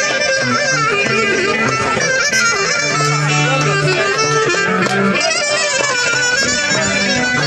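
Greek folk dance music playing loudly through PA speakers: an ornamented, wavering lead melody over plucked strings and a bass line that steps between notes.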